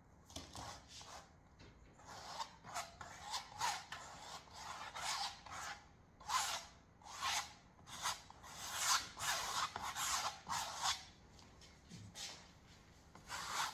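Palette knife scraping acrylic paint across a stretched canvas in short repeated strokes, about two a second, then a pause of a couple of seconds before one last stroke near the end.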